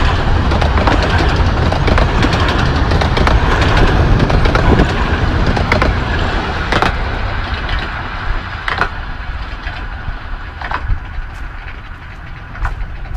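A 15-inch gauge miniature railway train running and fading away into the distance, with a low rumble and scattered sharp clicks.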